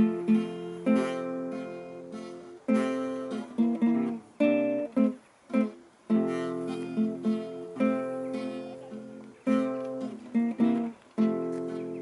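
Two acoustic guitars strumming the instrumental intro of a folk song: chords struck and left to ring and fade, in phrases with short breaks between them.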